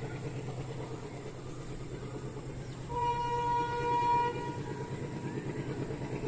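ALCO diesel locomotive engine chugging as it hauls a departing train, with a steady rhythmic low beat. About three seconds in, its horn sounds one long note that fades after about two seconds.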